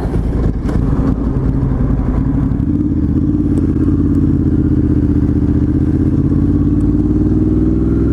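Ducati Hypermotard 1100S's air-cooled L-twin engine running as the motorcycle rides along. Its pitch climbs over the first few seconds, then holds steady.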